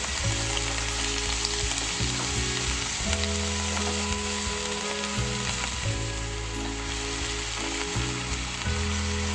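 Chicken liver and gizzards stir-frying in a wok, sizzling steadily in hot oil with a splash of water just added, while a spatula stirs them through the pan.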